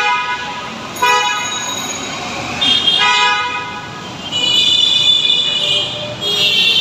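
Several vehicle horns honking one after another in busy road traffic, each blast steady and lasting about a second, over the constant noise of the traffic.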